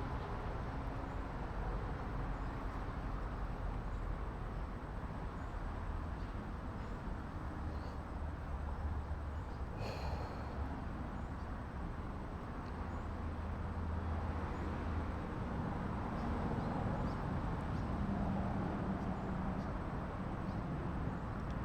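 Ducati Multistrada V4's V4 engine running low and steady. A brief high-pitched chirp sounds about ten seconds in.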